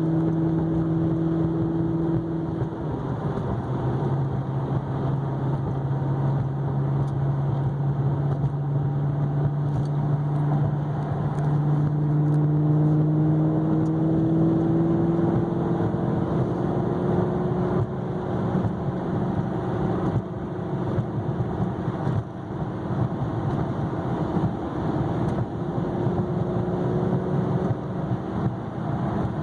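2009 Maserati GranTurismo S V8 and exhaust in sport mode under way at highway speed: a steady engine drone over road and wind noise. The drone drops in pitch about three seconds in, then climbs slowly past the middle as the car gathers speed.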